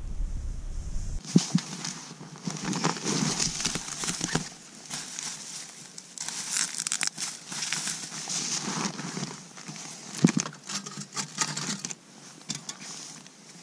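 Plastic bags crinkling and rustling as they are handled, with a couple of sharp knocks.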